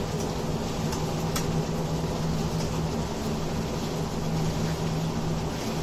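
Chicken pieces frying in butter in a pan, sizzling steadily while a slotted spatula turns them, with a few light clicks of the spatula against the pan. A steady low hum runs underneath.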